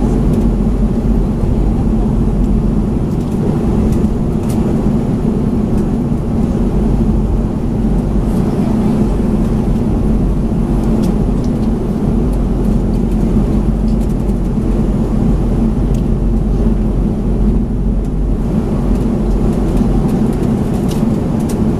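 Steady cabin noise of a Boeing 737-500 taxiing, heard from inside the cabin over the wing: the low, even hum of its CFM56-3 jet engines at taxi power, with a few faint clicks.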